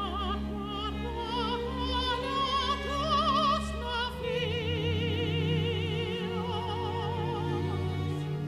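Operatic soprano singing with wide vibrato over a symphony orchestra's sustained low notes. From about four seconds in she holds one long note.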